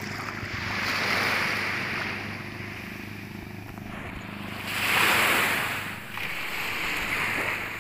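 Sea waves washing in, swelling about a second in and again, louder, around five seconds.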